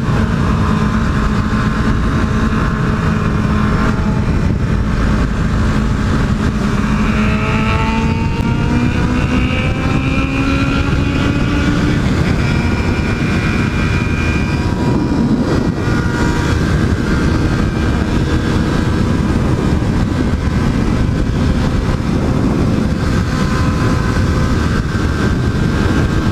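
Yamaha MT-03 motorcycle engine pulling at highway speed under heavy wind rush on the helmet microphone. The engine note holds steady, then rises gradually as the bike accelerates in gear about a third of the way in, and settles again.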